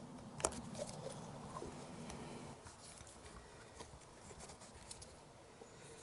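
Faint handling sounds of a lubricated rubber carburettor-to-engine boot being pushed and worked onto an XJ900S Diversion carburettor by hand: soft rubbing and scattered small clicks, with one sharper click about half a second in.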